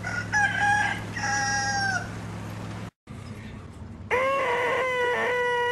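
A rooster crowing: a short call, then a longer held one. After a brief silence, a long held cry at a steady pitch starts about four seconds in.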